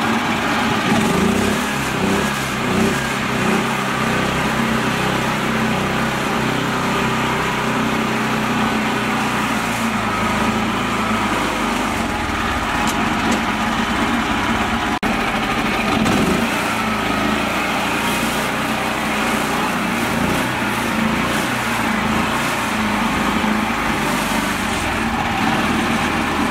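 Mini tractor's small engine running steadily without stopping.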